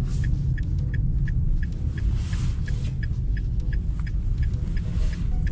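Car driving, heard from inside the cabin: a steady low road and engine rumble, with a light regular ticking about three times a second.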